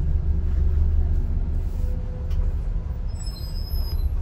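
Steady low rumble of a bus engine running, with a few faint high-pitched squeals about three seconds in.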